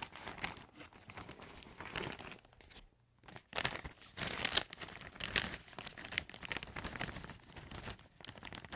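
Crinkling plastic bag of coconut fiber substrate being handled and shaken, with the loose fiber pouring out onto a hard floor in irregular rustling, crackling bursts and a short pause about three seconds in.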